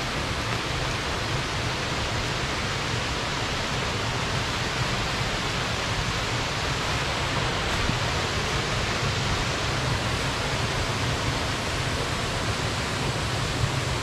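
Waterfall rushing steadily, an even noise of falling water with no breaks.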